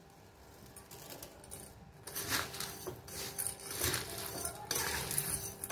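Metal spoon stirring dry, crunchy sev and fried dal in a stainless-steel bowl: irregular scraping, clinking and rustling, louder from about two seconds in.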